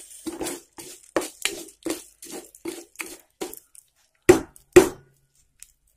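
Spatula stirring and scraping urad dal and sesame seeds roasting in a little oil in a pan, about three strokes a second. About four and a half seconds in come two loud knocks, and then the sound cuts off.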